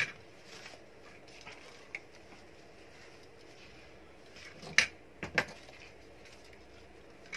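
A few short, light taps and knocks from hands working artificial flowers into a cardboard gift box, the loudest pair about five seconds in.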